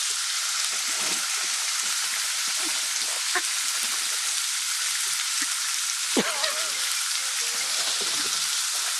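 Meat sizzling steadily in a hot pan, with a few light clicks and taps.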